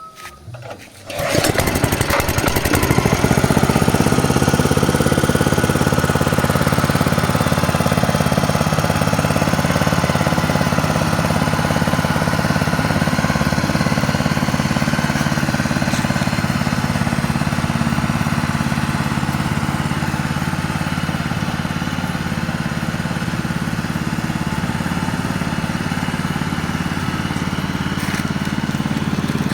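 Motorized vibrating sand-sieving machine starting up about a second in, then running steadily and loudly with a low drone and a fast, even pulsing.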